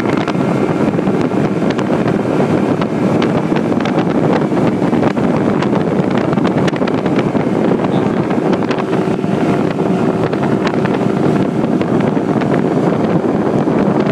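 Mercury 200 EFI V6 outboard running steadily at speed as the bass boat planes, mixed with heavy wind buffeting on the microphone and the rush of the wake's spray.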